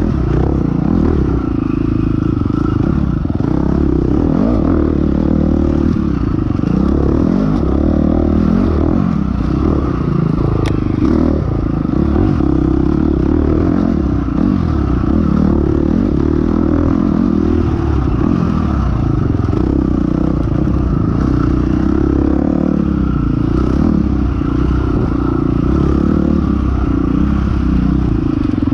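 Dirt bike engine running hard and revving up and down continuously as it is ridden through rough woods trail, heard close up from the rider's onboard camera.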